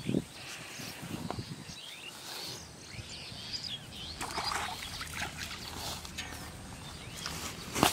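Open-air countryside sound of small birds chirping over and over, with soft rustling and a few low knocks. A sharp knock comes near the end.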